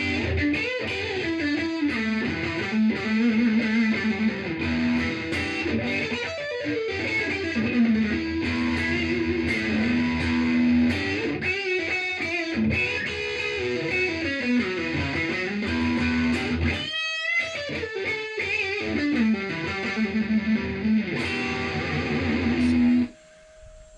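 Electric guitar played solo in fast runs of single notes, with a short break about two-thirds through followed by a held note wavering in vibrato. The playing stops abruptly about a second before the end.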